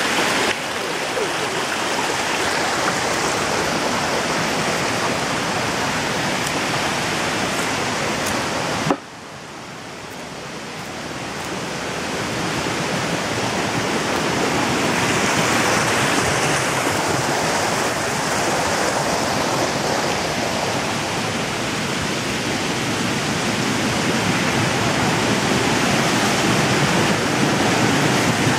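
Cetina River water rushing and cascading over rocks in a steady roar of white water. About nine seconds in it drops suddenly after a brief click, then swells back up over several seconds.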